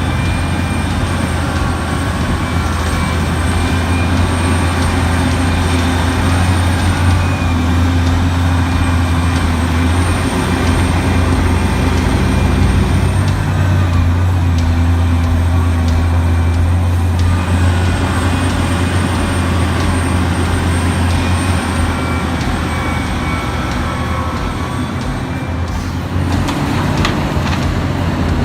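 Heavy machine's diesel engine running steadily with a deep drone, with a few knocks or clanks near the end.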